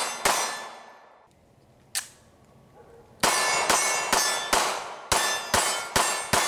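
Steel targets ringing as they are hit by rapid 9mm pistol fire from a Sarsilmaz CM9. There is one ringing hit near the start and a fainter lone ping about two seconds in. Then a steady string of about eight shots and clangs comes at roughly two a second, each ring dying away before the next.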